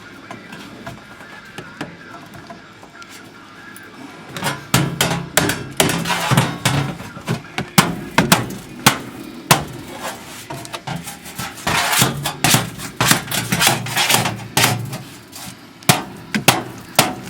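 Sheet-metal patch being knocked and bent down into shape against a vehicle's rusted floor pan. It starts a few seconds in as a run of irregular, sharp metallic knocks and clanks.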